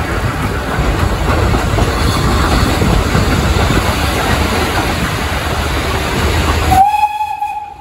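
Running noise of a train heard from on board: a steady loud rumble with the clatter of wheels over rail joints. Near the end it cuts off abruptly and a short high tone sounds for under a second.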